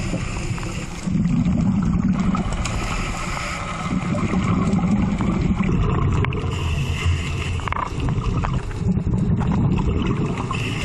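Underwater sea sound around a submerged camera: a muffled low rushing with some gurgling, swelling and easing every second or two.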